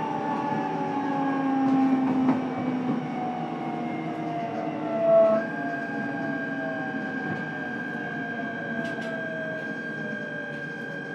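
Running sound heard inside a JR East E129 series motor car: the Toyo Denki VVVF inverter and traction motors whine in several tones that slowly fall in pitch as the train slows, over the rumble of the wheels on the rails. About five seconds in there is a brief louder knock, and the inverter changes to a steady high whine.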